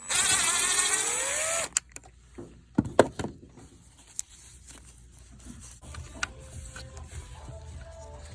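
Cordless power tool's motor spinning out the 10 mm bolt that secures an engine's exhaust camshaft position sensor. The whine rises in pitch for under two seconds and stops suddenly, followed by a few sharp metallic clicks.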